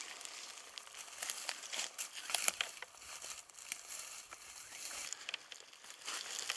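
Dry grass and brush rustling and crackling underfoot as several people walk through tall dry bush grass, an irregular run of crunching steps and snapping stems that is loudest about two and a half seconds in.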